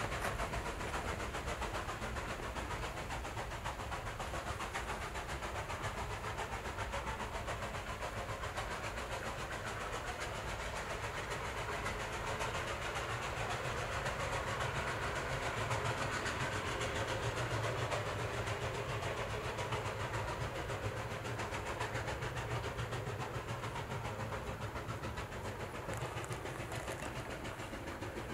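Steam locomotive working, its exhaust beats and steam hiss heard as a steady, continuous noise.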